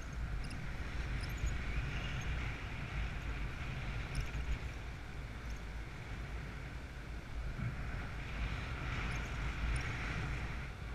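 Wind buffeting the microphone in flight, a steady low rumble with a hiss that swells twice, about two seconds in and again near the end.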